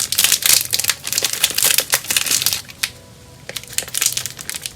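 Thin plastic parts bag from a model kit crinkling as it is handled and pulled open, in dense, quick crackles with a short lull about three seconds in.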